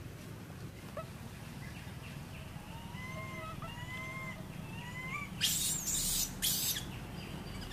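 A run of short, thin, arching chirps, some in quick pairs, followed about two thirds of the way through by three loud bursts of leafy branches rustling.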